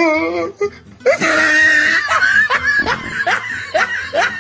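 Men laughing hard in a string of short, rising bursts, with a wavy, drawn-out voiced sound at the very start.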